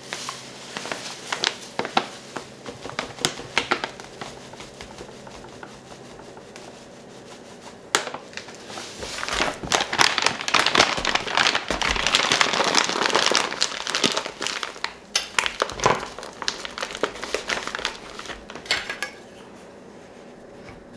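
Crinkling of a shiny coffee bag as ground coffee is poured from it into a glass jar and the bag is handled and folded down, with a dense, louder stretch of crumpling about eight seconds in that lasts some six seconds.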